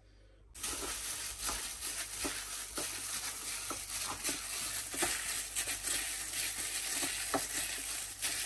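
A plastic-gloved hand squeezing and kneading diced raw chicken in a ceramic bowl to work in red food colouring: wet squishing and crinkling of the glove, with many small irregular clicks. It starts about half a second in.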